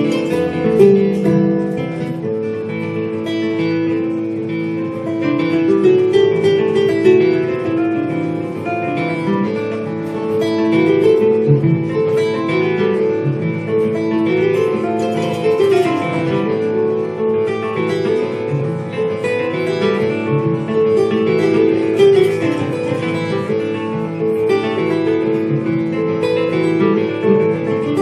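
Kora and acoustic guitar playing together live, an instrumental passage of plucked melodies.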